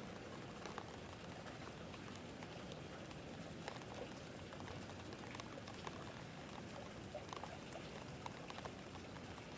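Faint steady rain, with scattered drops pattering and ticking irregularly.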